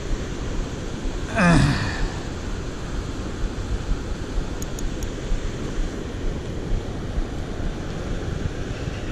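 Steady rush of wind buffeting the microphone over churning water. About a second and a half in, a short vocal sound cuts through, the loudest moment.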